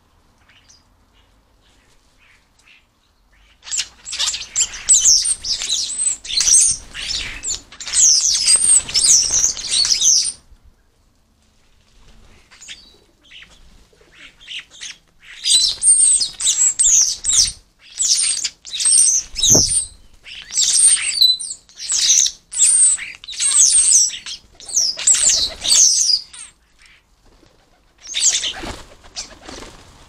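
European starlings squabbling at a fat ball feeder: bursts of harsh, scratchy chattering and squawking calls mixed with wing flapping. There are two long spells of squabbling with a quiet gap between them, and a short burst near the end.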